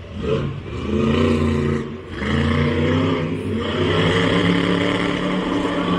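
Monster truck engine revving hard under throttle, easing off briefly about two seconds in, then coming back on and held at high revs.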